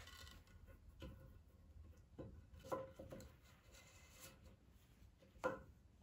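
A few soft wooden knocks and taps in a near-quiet room as a wooden hanging bar on a string is handled against a wall. The loudest knock comes about five and a half seconds in.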